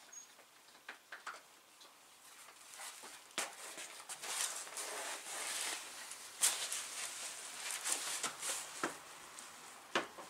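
Plastic and foam packaging rustling as a bicycle is unwrapped and lifted out of its cardboard box, with scattered light clicks and knocks from handling the bike.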